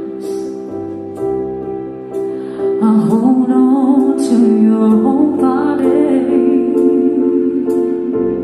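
A slow song with sustained chords, light percussion about once a second and a sung vocal that comes in about three seconds in, played through a pair of KEF Reference floorstanding loudspeakers.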